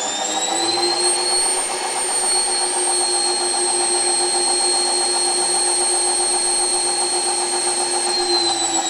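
Indesit WIE127 washing machine's motor whining: the pitch rises during the first second, holds steady, and begins to fall near the end.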